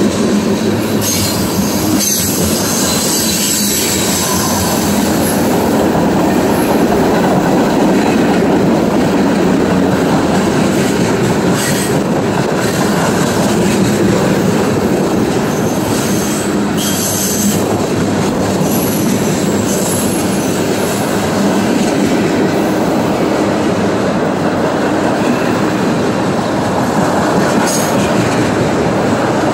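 Freight train cars rolling past close by: a steady rumble and clatter of steel wheels on rail joints, with several brief high-pitched wheel squeals.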